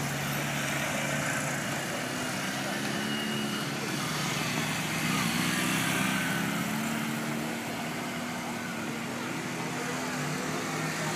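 Several motorcycle engines running at low revs, their pitch rising and falling as the bikes turn at low speed.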